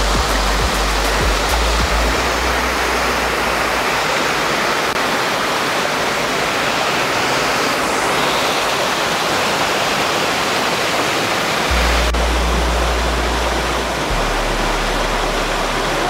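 Stream water rushing steadily over rock ledges in small white-water cascades, with low rumbling on the microphone at times.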